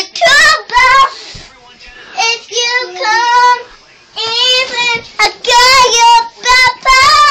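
A young girl singing alone in a high voice, several phrases with short breaks between them.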